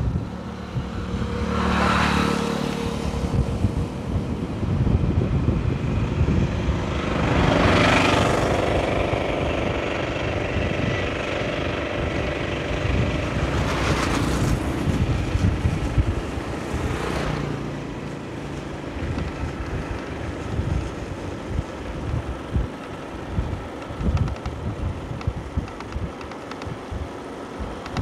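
Wind buffeting the microphone on a moving motorcycle, with a steady low rumble. Other vehicles go past four times in the first twenty seconds, each one swelling and fading away.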